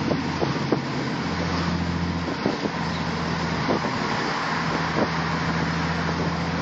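Audi S5's exhaust purring low and steady at cruise, mixed with tyre and road noise as heard from inside a closely following car; a steady low tone comes in about a second in.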